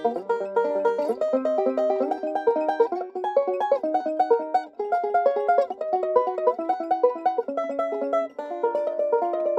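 Banjo played solo with finger picks, a fast, even stream of plucked notes in rolling patterns.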